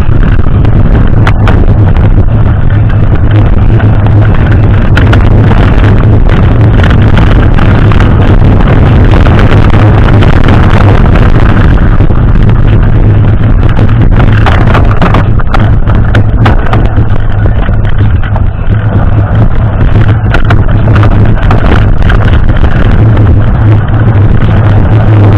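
Heavy wind buffeting on the microphone of a mountain bike riding fast downhill, with the bike rattling and knocking over the rough surface.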